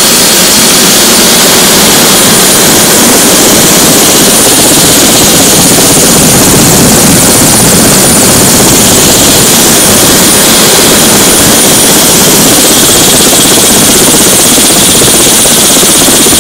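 Helicopter's turbine engine and rotor running close by: a loud, unbroken rushing noise with a steady high whine over it.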